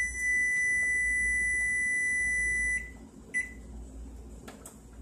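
Electronic kitchen timer sounding one long, steady high beep that cuts off about three seconds in as it is silenced, then one short keypad beep as a new time is set.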